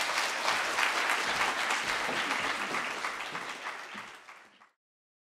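Audience applauding, the clapping fading away about four seconds in and cutting off to silence just before the end.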